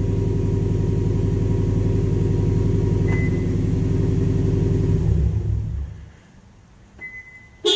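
A 2017 Subaru STI's turbocharged flat-four engine idling steadily with no one in the car, held running by the remote starter, then shutting off about five seconds in when the remote starter's 8-second timer after the last door closed runs out. Afterwards come a short high beep and a sharp click right at the end.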